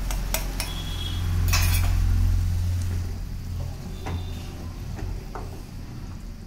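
Wooden spatula stirring and scraping thick gravy in a metal kadhai, with scattered knocks and a couple of short metallic clinks of utensils, over a steady low hum.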